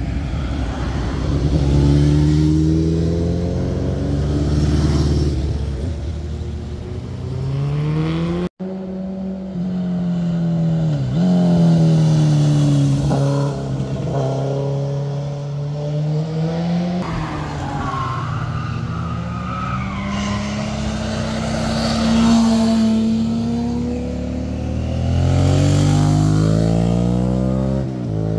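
Motorcycles riding one after another through a tight bend, engines revving with pitch repeatedly rising and falling as the riders ease off and accelerate. The sound breaks off abruptly about a third of the way in and another bike's engine takes over.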